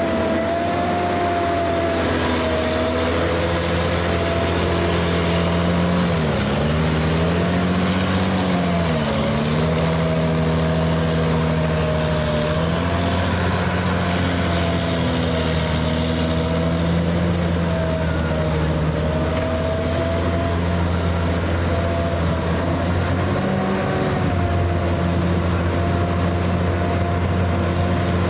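Panzer IV Ausf. H tank driving, its engine running with a steady drone. The engine pitch dips twice, about six and nine seconds in, as the revs drop and pick up again.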